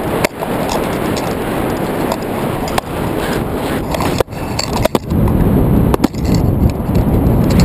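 Wind rushing over a handheld camera's microphone during paraglider flight: a loud, steady rumbling rush, broken several times by brief knocks and dropouts.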